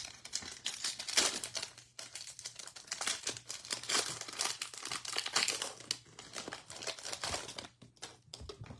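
Foil wrapper of a Panini Contenders football card pack being torn open and crumpled by hand, a dense crinkling that thins out near the end.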